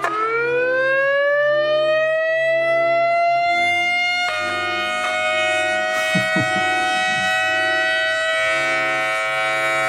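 Loud civil defense siren winding up, its pitch rising over about four seconds. About four seconds in, a second close tone joins, and the two hold steady together.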